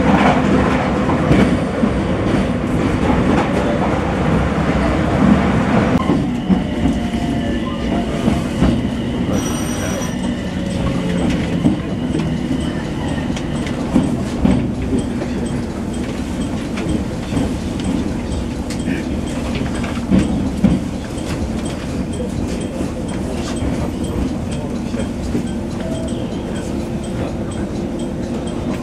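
Train noise heard from inside a passenger carriage: wheels running on the rails with a rhythmic clatter. The sound changes character about six seconds in and again around fourteen seconds, with a brief high ringing tone near ten seconds.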